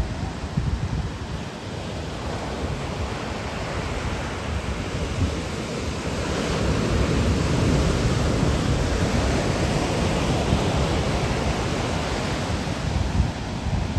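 Ocean surf washing on the shore, a steady rush that swells as a wave breaks about halfway through, with wind gusting on the microphone.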